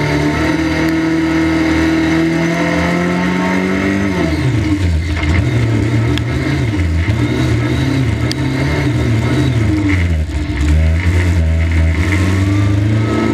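A 1300 stock car's 1300cc racing engine heard from inside the cabin at race speed: held at high revs, it drops about four seconds in as the driver lifts off, wavers lower for several seconds, then climbs again near the end as the throttle goes back on. A few sharp clicks cut through.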